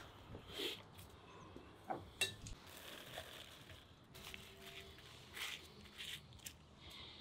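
Food-handling sounds: soft rustling of lavash flatbread and crisp lettuce leaves, lettuce dropped into a glass bowl and laid with metal tongs, with a few light clinks and taps, the sharpest about two seconds in.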